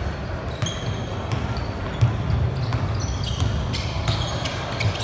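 Indoor basketball game: a ball bouncing on a hardwood court amid repeated sharp knocks and short, high squeaks of sneakers, over a steady low hum of the crowd in a large echoing hall.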